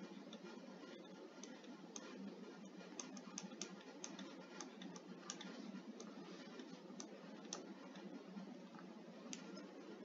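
Faint, irregular clicks and taps of a stylus on a tablet screen during handwriting, several a second at times, over a steady low hiss.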